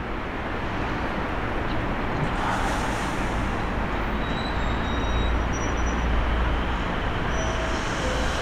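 A 287 series electric train standing at the platform, about to depart, its onboard equipment running with a steady hum and hiss.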